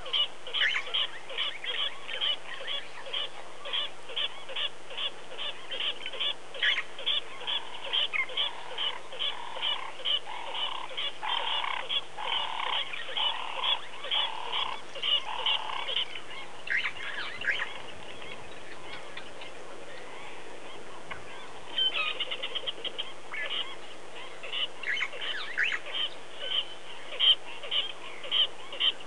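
Wild birds calling: a high call repeated about twice a second, broken off for a few seconds past the middle and then taken up again, with a lower run of about half a dozen calls partway through.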